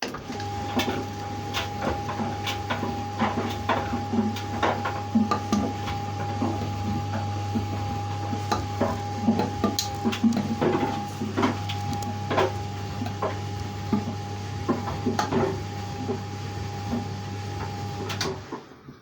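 Tumble dryer running with a steady hum and a high whine, the wet clothes in the drum knocking and clicking irregularly as it turns. The sound cuts off suddenly near the end.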